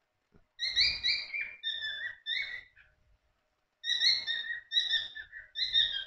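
Cockatiels calling: quick strings of short, shrill chirps in two bouts, with a pause of about a second between them.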